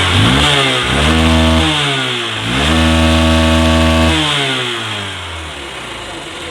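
Hero Hunk motorcycle's single-cylinder four-stroke engine revved up twice, each rev held for about a second and a half, then falling back to idle near the end. The carburettor has just been tuned, and the earlier bad engine sound is gone.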